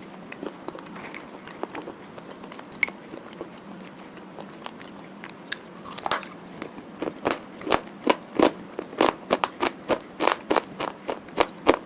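Biting into and chewing a crunchy snack bar: a few faint crunches at first, then from about halfway a fast run of loud, sharp crunches, two or three a second.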